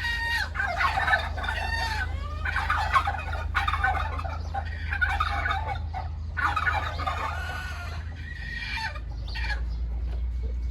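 A flock of chickens clucking and calling over one another, in waves of busy chatter every couple of seconds, while they feed.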